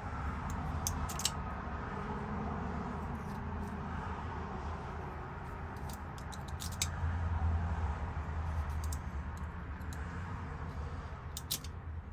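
Small metallic clicks and taps of lock cylinder parts and keys being handled, a few at a time with gaps between, over a steady low hum.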